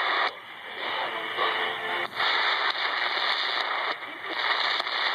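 Shortwave radio tuning across the band, giving loud hiss and static between stations. The static drops out briefly twice, and faint snatches of a station's tones come through about half a second to two seconds in.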